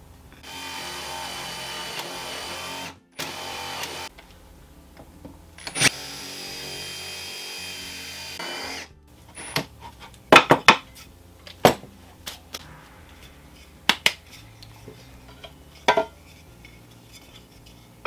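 Cordless drill with a Forstner bit boring a hole in a wood block: the motor runs for about two and a half seconds, stops briefly, gives a short burst, then runs again for about three seconds. After that come several sharp wooden knocks.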